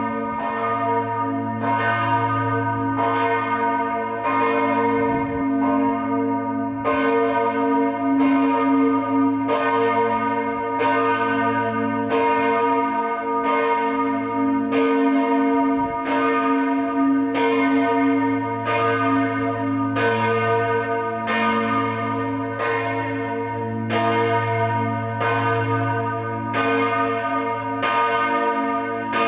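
Church bell tolling, struck about once a second, each stroke's ring carrying on under the next so the hum never dies away.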